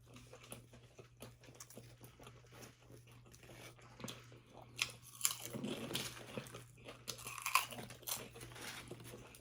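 People eating fast, chewing and crunching a sub sandwich and potato chips, with scattered crisp bite clicks that thicken about halfway through.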